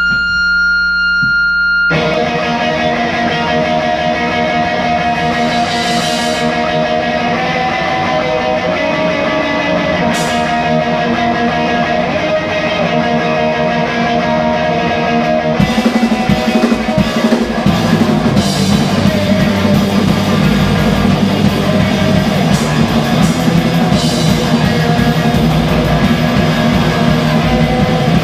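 Rock band playing live, led by electric guitar. A single held tone gives way to guitar lines about two seconds in, and about halfway through the band comes in louder and heavier with a strong low end.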